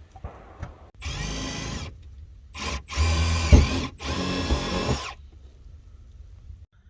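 Power drill motor running in four bursts at a steady pitch: one of about a second, a brief blip, then two runs of about a second each, almost back to back.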